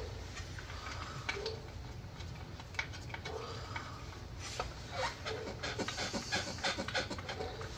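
Light clicks, taps and scraping of hand work on a plastic intake manifold as its 8mm bolts are started by hand. The clicks come thicker and quicker from about halfway through.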